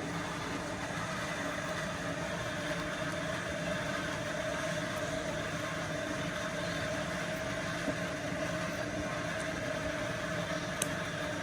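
Steady mechanical hum with a constant tone, with a few faint clicks in the second half.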